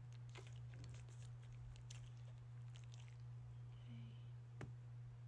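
Near silence: a steady low electrical hum with faint scattered clicks and ticks.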